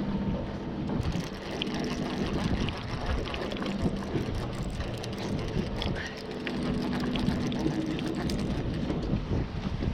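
Steady wind and water noise on a fishing boat, with a low engine hum that comes and goes and scattered small clicks.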